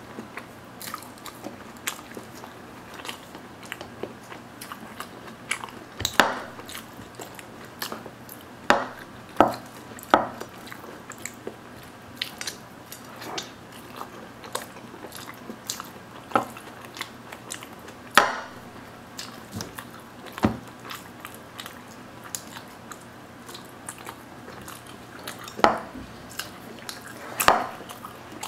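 A person chewing and biting crispy naan bread topped with tomato and sauce, close up: scattered short crunches and wet mouth clicks at irregular intervals, a handful louder than the rest.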